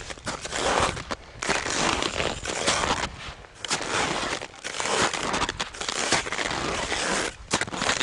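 Crampons on mountaineering boots crunching into firm snow, step after step in an uneven rhythm, each step a short burst of crunching.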